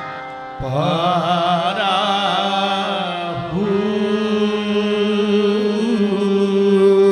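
Sufi devotional singing in qawwali style with harmonium accompaniment. A voice winds through an ornamented run, then holds one long steady note from about three and a half seconds in.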